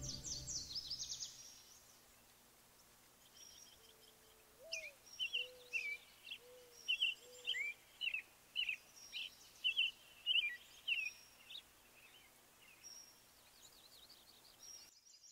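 Music fades out in the first second or so, then birds chirp: a run of short, sharp chirps, one or two a second, with a few lower whistled notes beneath the first of them.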